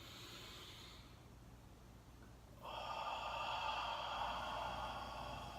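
A man breathes in softly, then about two and a half seconds in breathes out a long, whispered "haaa": the heart sound of the Taoist Six Healing Sounds.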